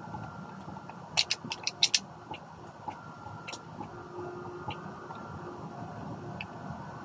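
Sharp metallic clicks and light rattles from a pump-action shotgun being handled and wiped down with a cloth: a quick run of about six clicks a little over a second in, then a few lighter single clicks.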